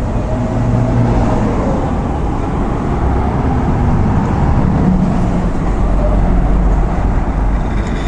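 Steady road-vehicle noise: engine hum and tyre rumble of cars in traffic, the hum slowly rising and falling.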